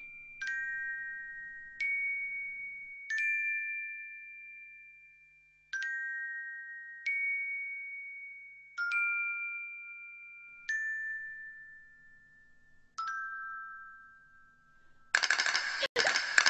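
A slow, sparse melody of bell-like mallet chimes: about eight strikes at uneven gaps, each a two-note chord that rings and fades away. About fifteen seconds in, a loud, harsh rattling cuts in suddenly.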